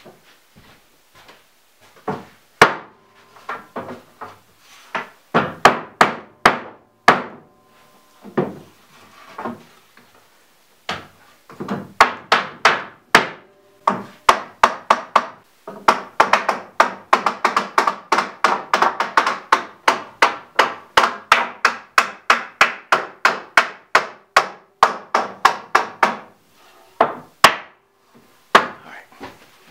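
Rubber mallet knocking on the pine boards of a wooden bed frame: scattered blows at first, then a steady run of about four knocks a second for around ten seconds.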